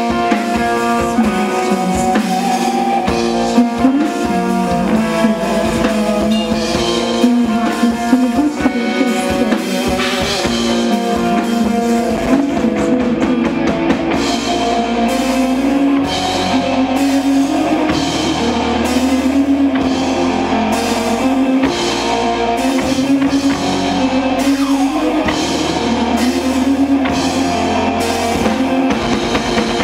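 A live rock band playing: electric guitars and bass over a drum kit, with a steady drum beat that grows heavier about halfway through.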